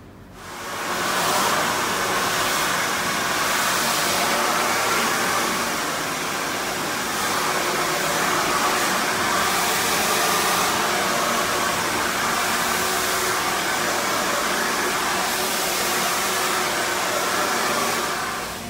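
Handheld hair dryer blowing: it comes on about half a second in, runs steadily, and cuts off near the end.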